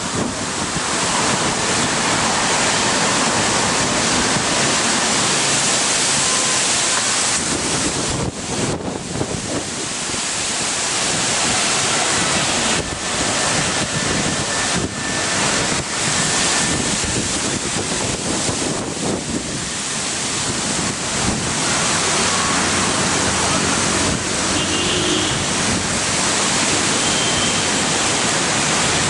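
Strong storm wind rushing through leafy tree branches and buffeting the microphone, a continuous loud rush that eases briefly now and then between gusts.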